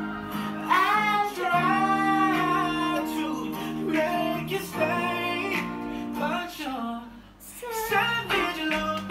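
A woman singing a pop melody over plucked guitar accompaniment, with a short break in the voice about seven seconds in.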